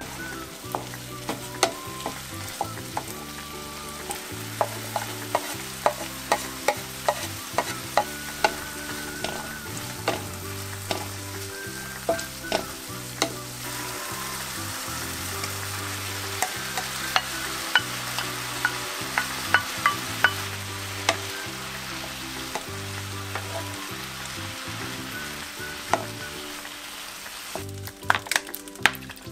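Diced chicken and vegetables sizzling in a frying pan, stirred and pushed around with a wooden spatula, with frequent sharp taps and scrapes of the spatula against the pan.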